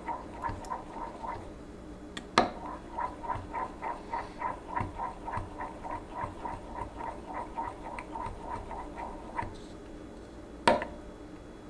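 Metal spoon stirring liquid soft-plastic plastisol in a glass Pyrex measuring cup, mixing in silver colorant. It scrapes round the glass about three times a second, breaks off briefly with a sharp clink against the glass a couple of seconds in, and gives another sharp clink near the end.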